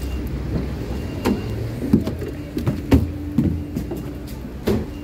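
A standing LVS-86K tram being boarded: a steady low hum, with about five knocks and thuds of feet on the metal entry steps and floor. A steady tone joins the hum about halfway through.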